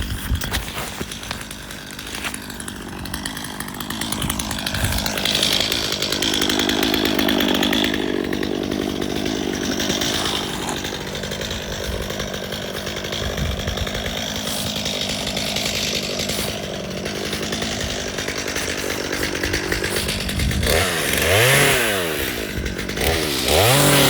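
Two-stroke chainsaw engine running steadily, then revved up and back down twice near the end.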